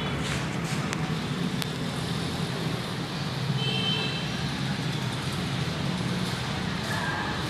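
Yamaha Soul GT scooter's engine running steadily with a constant low hum.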